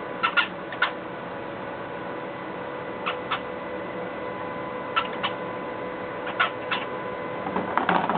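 Cockatiels chirping: short, sharp calls, mostly in pairs, every second or two, with a quicker flurry near the end, over a steady faint hum.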